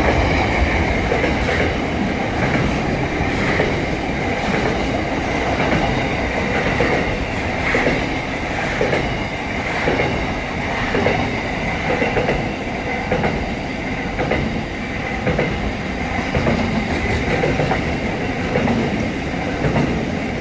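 Freight train wagons rolling past close by: a steady rumble of steel wheels on rail, with wheel knocks over rail joints repeating in an even clickety-clack rhythm.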